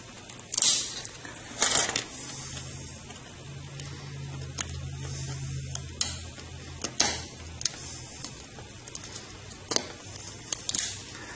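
An X-Acto knife blade snapping through the leads of a surface-mount chip one at a time while the chip is cut free of the circuit board. Several sharp snaps come at irregular intervals, a second or so apart.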